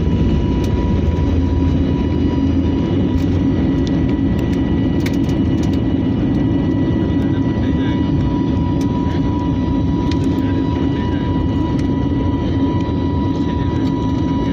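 Jet airliner's turbofan engines at takeoff thrust, heard from the cabin beside the wing: a steady loud noise with a steady whine. The deep rumble of the wheels on the runway fades about two seconds in as the plane lifts off and climbs.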